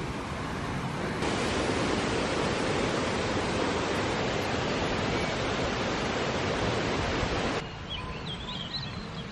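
Steady rushing of a waterfall, an even noise that grows louder abruptly about a second in and drops back sharply near the end. A few bird chirps are heard once it quietens.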